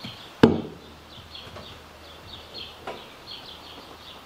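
Small birds chirping over and over. About half a second in, one sharp knock with a brief ring as the homemade boat seat on its aluminium tube post is handled into its deck mount, then a lighter click near three seconds.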